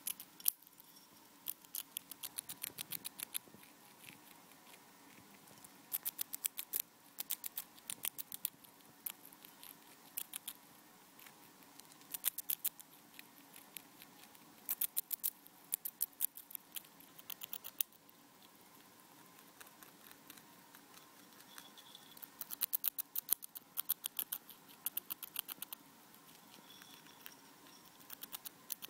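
Pet rat crunching puffed rice cereal (rice bubbles), in quick runs of small crisp crunches separated by short pauses.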